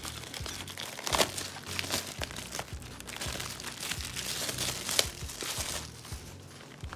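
Clear plastic shrink wrap being torn off a card hobby box and crumpled in the hands: a dense run of crinkling and crackling with sharp snaps about a second in and again near five seconds.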